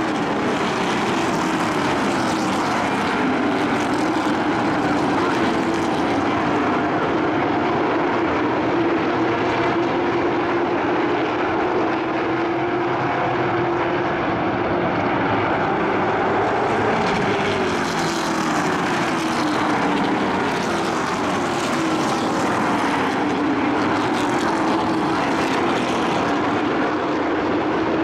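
Engines of a field of short-track racing pickup trucks running around the oval, several at once, their pitch rising and falling as the trucks pass.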